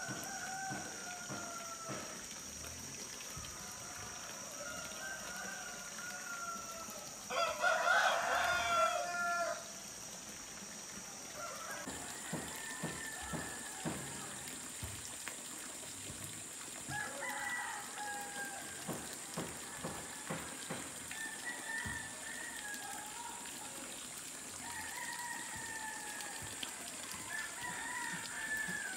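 Roosters crowing: one close, loud crow lasting a couple of seconds about a quarter of the way in, and fainter crows from birds farther off answering throughout. A steady high-pitched hum runs underneath, rising in pitch a little before halfway.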